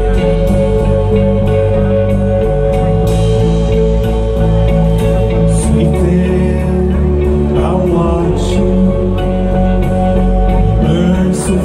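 Shoegaze rock band playing live: ringing electric guitars over bass and drums, loud and steady, with a few cymbal-like splashes.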